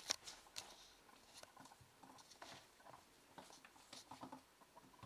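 Faint, irregular patter and scuffs of a kitten's paws and a scrap of potato peel skidding on a laminate floor as the kitten pounces and bats at it, with a sharper tap about a tenth of a second in.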